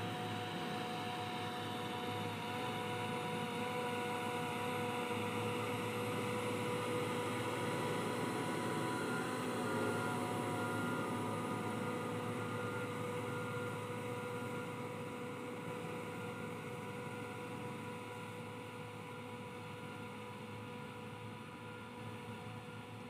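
Crawler bulldozer's diesel engine running with a steady whine while it moves on its tracks, loudest about halfway through as it comes close, then slowly fading as it moves off.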